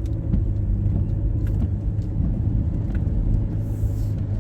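Steady low rumble of a car heard from inside the cabin, with a few faint ticks and a brief soft hiss about four seconds in.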